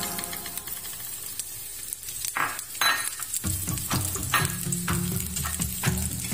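Sliced onion and chopped garlic sizzling in hot oil in a nonstick frying pan, with short scraping strokes of a spatula stirring them.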